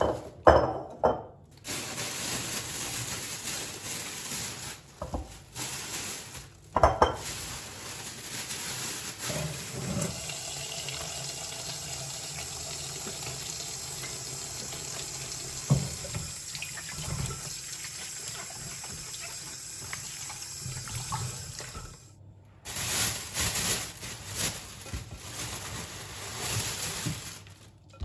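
Kitchen tap running into a sink, with a few knocks of things being handled under the water. The flow cuts off briefly about 22 seconds in, then comes back more unevenly.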